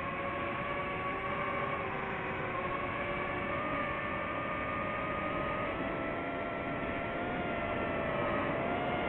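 DJI FPV drone's motors and propellers whining in flight over a rush of air noise, the pitch drifting slowly and rising a little in the second half.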